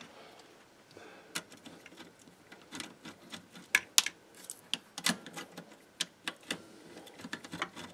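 Irregular sharp clicks and light taps of hand tools and screws against a tape recorder's metal chassis during disassembly, the loudest near the middle.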